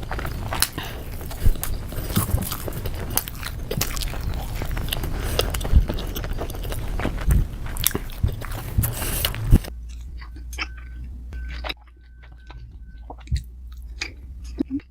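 Close-up mouth sounds of a person biting and chewing dumplings, a dense run of small clicks and smacks. About ten seconds in the sound drops away sharply, leaving only a few soft clicks.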